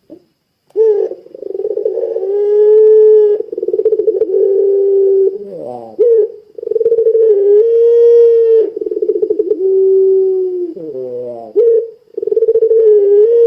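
Puter pelung dove calling with long, drawn-out coos: three held notes of a few seconds each, a rolling, quavering tone at a steady pitch, each opened by a short gliding note.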